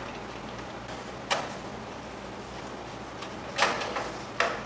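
A few sharp metal clicks and taps as a screwdriver turns the handle screw against the sheet-metal door of a Masterbuilt propane smoker: one about a second in, a quick cluster past three and a half seconds, and one more near the end.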